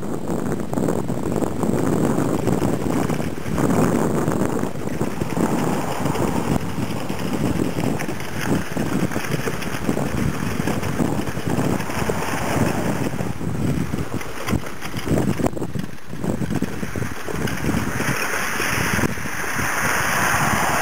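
Continuous rumbling noise of a four-wheeled dog-training cart rolling along a dirt trail behind a team of running huskies, mixed with wind buffeting the microphone. The rolling turns harsher a few seconds before the end as the cart crosses gravel.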